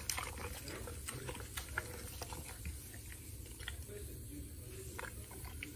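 Dog eating from a stainless steel bowl: faint chewing and scattered clicks of food against the bowl, over a low rumble.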